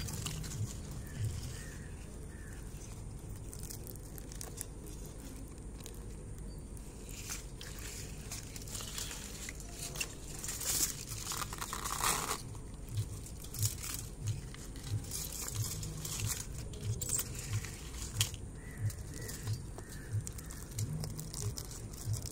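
Thin foil and plastic layers of a mobile battery's pouch cell crinkling and tearing as they are peeled apart by hand, in irregular rustles with a louder stretch about ten to thirteen seconds in.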